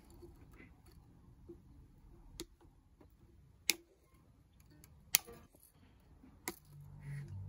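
Small side cutters snipping the excess ends of ukulele strings at the tuning pegs: four sharp clicks, about a second and a half apart.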